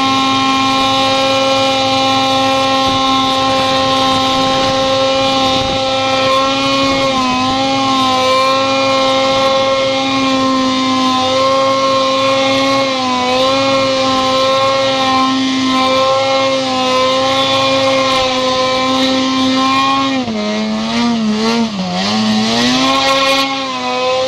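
A vehicle engine running at high, nearly steady revs. The pitch dips briefly a few times, then wavers and sags lower for a few seconds near the end before climbing back.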